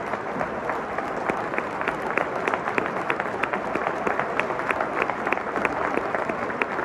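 Football stadium crowd applauding, with sharp individual claps close by a few times a second over a steady crowd hubbub.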